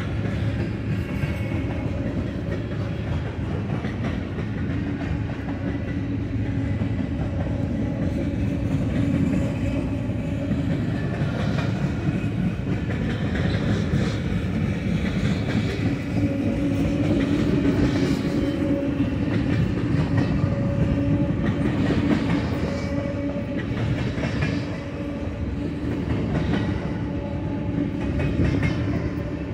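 Freight cars of a Union Pacific manifest train rolling steadily past: a continuous rumble of steel wheels on the rails, with clicking and clacking as the wheels cross rail joints.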